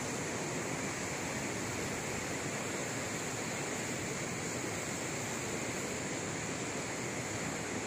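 Steady rushing hiss, even and unbroken, with no distinct events.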